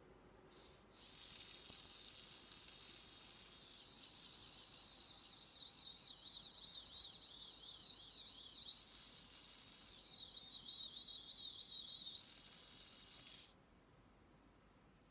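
SG90-HV micro servo running under power, a high-pitched buzzing whine that wavers up and down in pitch. It gives a short burst about half a second in, then runs steadily until it cuts off suddenly near the end.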